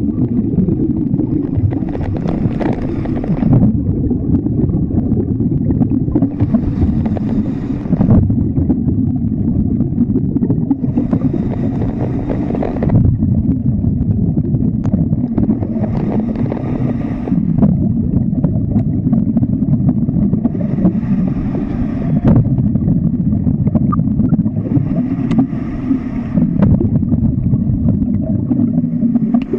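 Underwater sound in a swimming pool picked up through the camera: a steady low rumble, with a hiss of bubbles about every four and a half seconds.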